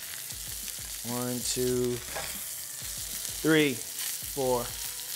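Steak, garlic and butter sizzling steadily in a hot carbon steel pan. A man's short wordless vocal sounds come over it a few times, about a second in, halfway through and near the end.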